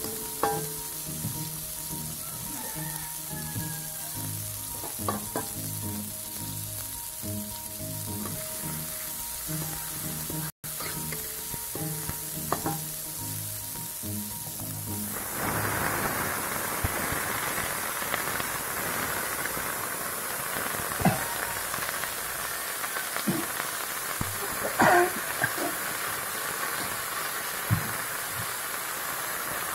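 Chopped garlic and shallots sizzling in oil in a wok, with a metal spatula scraping and tapping the pan. About halfway through, the sizzle jumps suddenly to a loud, full hiss as wet water spinach (kangkung) goes into the hot oil and steams, with a few sharp knocks of the spatula after.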